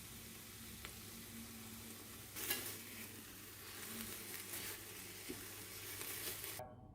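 Food sizzling in a frying pan: a steady hiss with small crackles, cutting off abruptly near the end.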